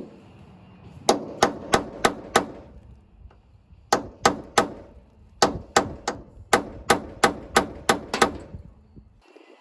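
Hammer striking metal on the car's door hinge: three bursts of sharp, ringing blows at about three a second, around five, then three, then ten strikes.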